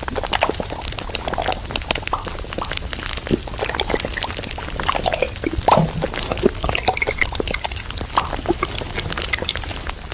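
Groceries and containers being handled: a busy run of small clicks, knocks and packaging rustles.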